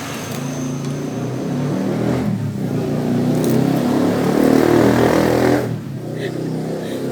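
A motor vehicle engine running and revving, growing louder for about five seconds, then dropping suddenly near the end.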